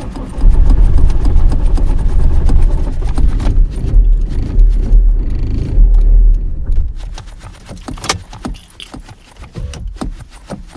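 A car's engine cranking on its starter for about six seconds in the cold, struggling to start, then the cranking stops. Light clicks and a key jangle follow.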